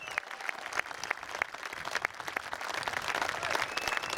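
Crowd applauding: many hands clapping at once, growing louder about three seconds in.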